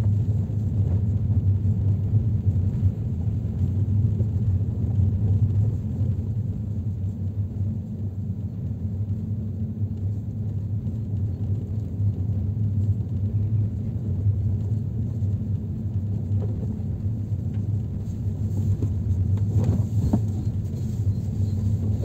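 Steady low rumble of travel along a snowy road: road and wind noise from the moving vehicle carrying the camera, with no sharp events.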